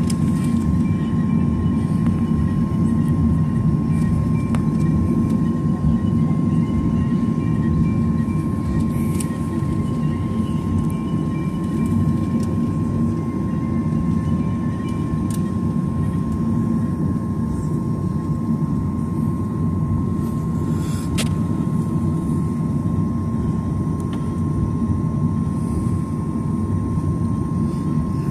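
Steady low rumble of a Boeing 737-900ER cabin on the ground before takeoff, with a thin steady whine over it and a few light clicks.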